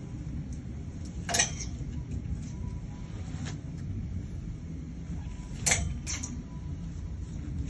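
Clothes hangers scraping and clicking on a clothes rail twice, about a second and a half in and again near six seconds, as garments are pulled from and put back on the rail, over a steady low background hum.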